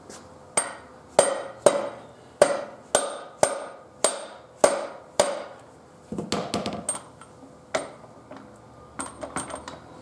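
Hammer blows tapping a motorcycle's rear wheel axle through the swingarm and wheel. There are about nine sharp, metallic-ringing strikes at roughly two a second, then lighter clattering knocks and a few small taps near the end.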